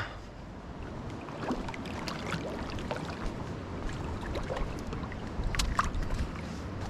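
Creek water running steadily, with scattered small clicks and knocks, a pair of them a little after five seconds in.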